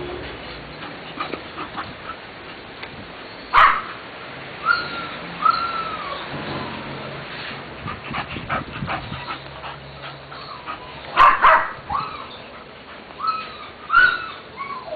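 Playing dogs, a bull terrier and a shih tzu: a few sharp barks, one about three and a half seconds in, a pair around eleven seconds and one near the end, mixed with short whining yips.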